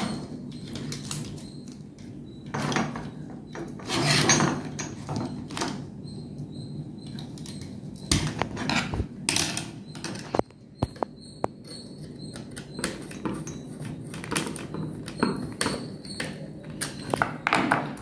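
Handling noise of wiring a plastic modular switch board: irregular clicks, taps and scrapes as wires are pushed into the switch and socket terminals and a terminal screw is turned with a small screwdriver, over a faint steady hum.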